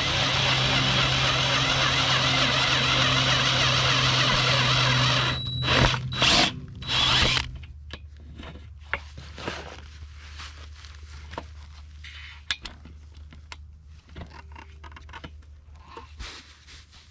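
Power drill boring holes in a solar panel's frame: it runs steadily for about five seconds, gives a few short bursts of the trigger around six and seven seconds in, then stops, leaving scattered clicks and handling noises.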